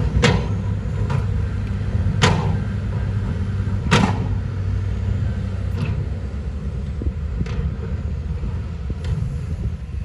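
Diesel engine of heavy earthmoving machinery running steadily with a low rumble. Three loud sharp knocks come about two seconds apart in the first four seconds, with fainter knocks later.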